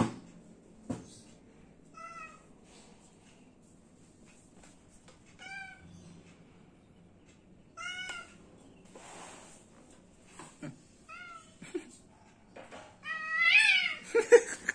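Domestic cat meowing: five short meows a few seconds apart, the last, near the end, the longest and loudest. Sharp knocks at the very start and about a second in.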